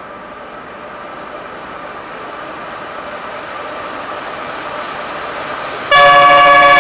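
Freight train approaching, its rolling noise growing steadily louder. About six seconds in, the lead Pacific National NR class diesel locomotive sounds its multi-note horn, suddenly and very loudly, holding it to the end.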